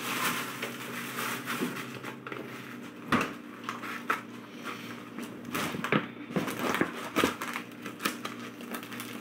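Cardboard box and plastic packaging being handled and unwrapped: rustling and crinkling with scattered sharp clicks, the loudest a little after three seconds and again around six and seven seconds.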